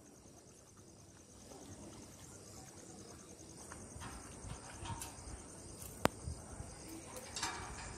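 Crickets chirping steadily at a high pitch, under faint noises of dogs eating from plates on the ground. A single sharp click comes about six seconds in.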